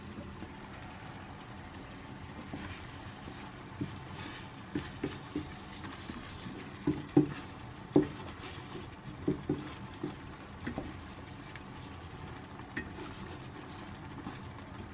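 A kitchen utensil knocking and scraping lightly against cookware while stirring, a dozen or so irregular taps over a faint steady hiss.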